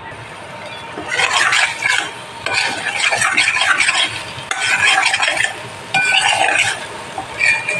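Steel spoon stirring and scraping thick masala paste as it fries in oil in a stainless steel pot, in a run of strokes every second or so, with a couple of short metallic squeaks near the end.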